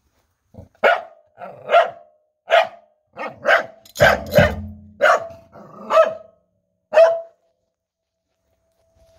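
A corgi barks about a dozen short, sharp times, roughly one every half second, and stops about seven seconds in. About four seconds in, a low drum boom rings under the barks for about a second.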